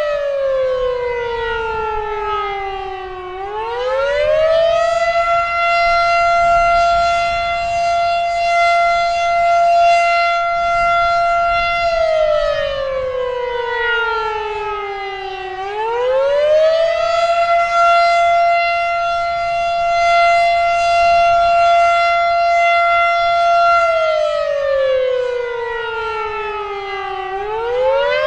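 Federal Signal Model 7 outdoor warning siren sounding its attack signal. The tone holds high for about seven seconds, winds down in pitch over about three seconds, then winds back up; this happens three times.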